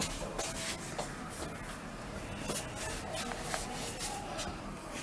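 Irregular rubbing and scraping noises with scattered clicks, close to the microphone.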